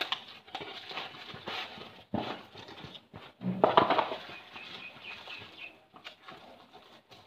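Plastic bubble wrap and shrink-wrap crinkling and rustling as a boxed headset is handled and pulled out, in irregular bursts. There is a brief louder sound about halfway through.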